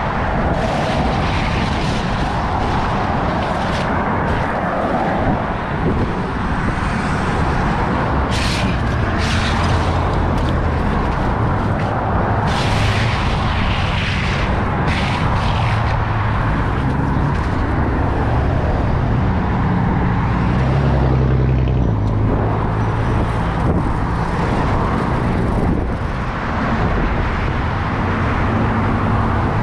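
Motor vehicle running with steady road and wind noise, its low engine hum shifting in pitch now and then, and a few brief louder hissing rushes.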